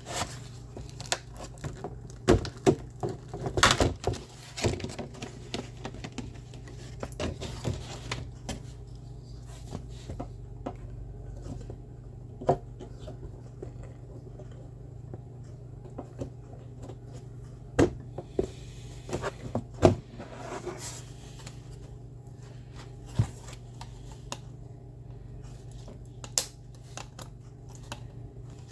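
Scattered clicks, taps and light plastic rattles of RAM modules being handled and fitted into the motherboard's memory slots, over a steady low hum.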